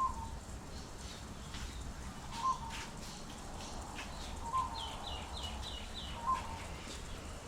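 Birds calling outside: a short call roughly every two seconds, with a quick run of five rising chirps about halfway through, over a steady low rumble.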